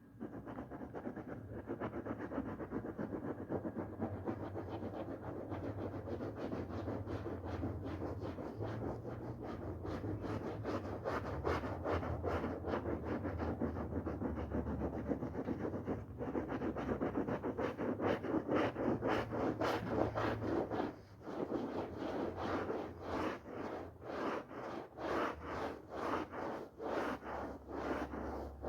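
Brush scrubbing a wet, foamy wool rug: continuous scrubbing that breaks into separate strokes, roughly two a second, about three quarters of the way through.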